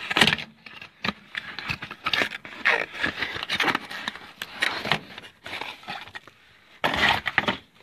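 Irregular scraping, rustling and clicking of hands taking the new blower-motor run capacitor out of its packaging.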